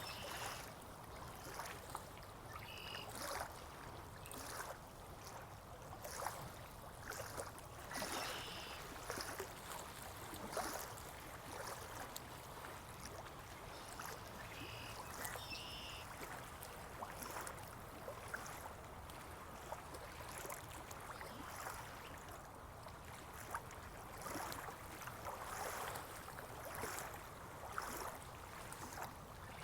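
Stream water trickling and lapping, with many small irregular splashes, and a few short bird chirps now and then.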